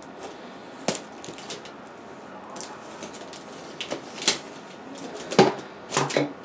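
A knife slitting the plastic shrink-wrap on a stack of cardboard boxes, heard as scattered clicks and taps of the blade and wrap against the boxes. The sharpest clicks come about a second in, near four seconds, and a few more near the end.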